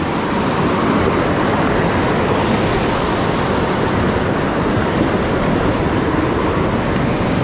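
Whitewater rapids of a mountain river rushing, a loud, steady wash of noise with no breaks.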